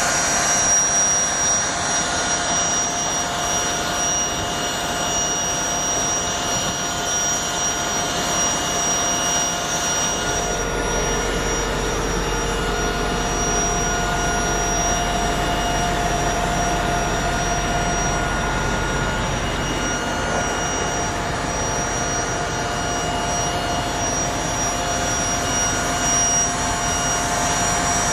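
Scania R730 V8 tanker lorry running: a steady mechanical drone with a high whine, and a deeper hum joining for about ten seconds midway.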